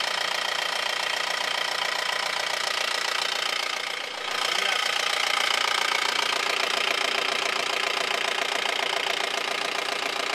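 Vehicle engine idling steadily under an open hood with a busy, rapid clatter, dipping briefly about four seconds in before settling back.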